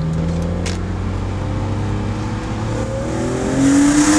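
BMW Z4 M Coupé's 343 PS straight-six with an Eventuri intake, heard from inside the cabin: it runs steadily at first, then the revs climb from about three seconds in under acceleration and it gets loudest near the end.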